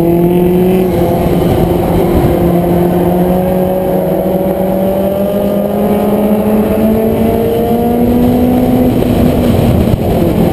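Compact race car's engine heard from inside the car, pulling hard with its pitch climbing slowly, then backing off about nine seconds in, over heavy road and tyre rumble.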